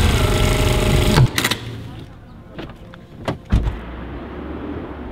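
Electric sewing machine running with a whine that rises slightly, then stopping abruptly about a second in. After it come a few short clicks and a low steady hum.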